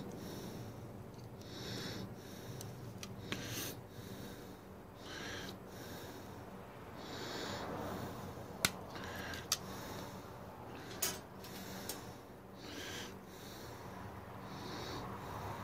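A person breathing close to the microphone, soft breaths every couple of seconds, while a hand crimper clicks sharply a few times around the middle as a spade terminal is crimped onto a copper wire. A faint low hum runs underneath.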